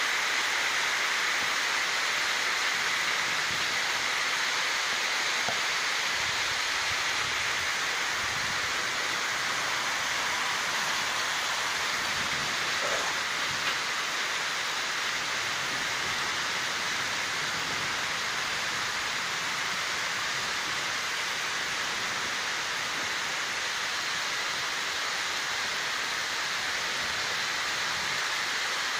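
Heavy rain falling steadily on rooftops and foliage, an even hiss of downpour.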